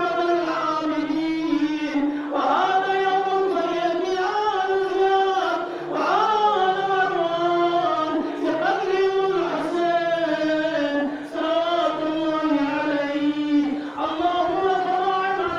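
Shia mourners chanting a noha, a lament for Imam Husayn, in men's voices. It goes in phrases of about four seconds, with short breaths between them.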